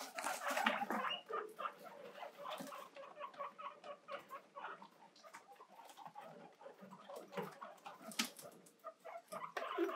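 Several pet guinea pigs wheeking: many short, repeated squeaks, the calls guinea pigs make when begging for vegetables. A couple of sharp clicks about eight seconds in.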